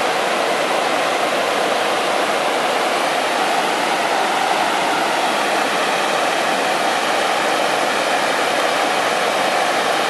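River water cascading over a broad, low sloping rock ledge: a steady, unbroken rush of falling water.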